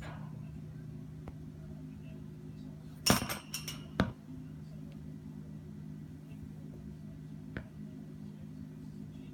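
Rat sneezing: a quick run of several sharp little sneezes about three seconds in, then one more a moment later, over a steady low hum.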